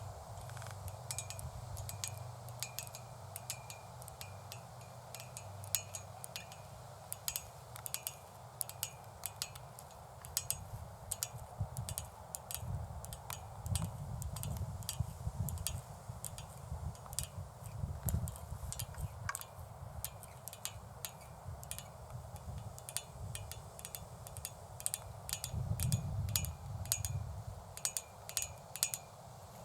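Long fingernails tapping: a run of quick, sharp, irregular clicks that grow denser near the end, with soft low rubbing or scratching swelling up now and then.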